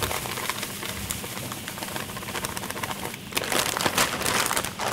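Plastic bag crinkling and rustling as plain breadcrumbs are shaken out of it into a stainless steel mixing bowl, with a louder burst of crinkling near the end.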